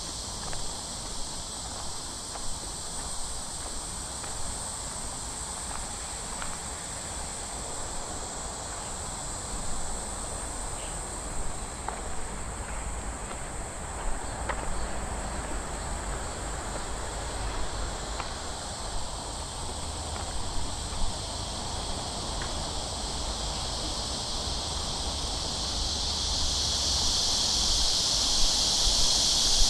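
A chorus of cicadas buzzing steadily, swelling louder over the last few seconds. Faint footsteps on a garden path sound now and then underneath.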